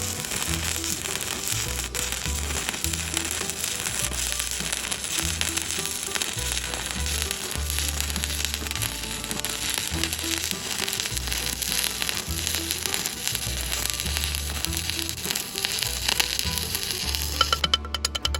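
Stick (shielded metal arc) welding arc crackling and sizzling steadily as a flat-position bead is run, over background music with a stepping bass line. Near the end the crackle stops and a rapid series of short scraping strokes begins.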